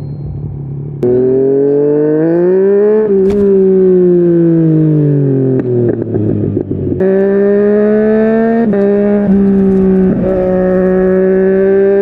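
Yamaha MT-09 inline-three engine with a Yoshimura R55 slip-on exhaust, revving. It comes in about a second in, climbs in pitch, then winds down for a few seconds. After an abrupt change it holds a steady high pitch with a few brief dips.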